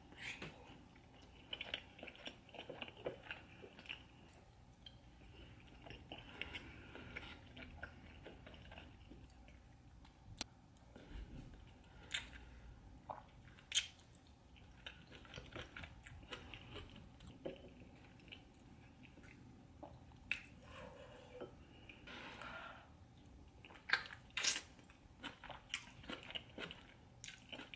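A person chewing and biting seafood close to the microphone: wet mouth sounds with a few sharp clicks scattered through.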